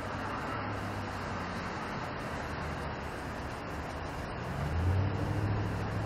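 Steady rumble of vehicle traffic, with a low engine hum that swells about five seconds in.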